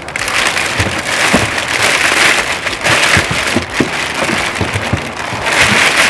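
Clear plastic bag crinkling and rustling as it is pulled off a boxed wall charger, with a few light knocks.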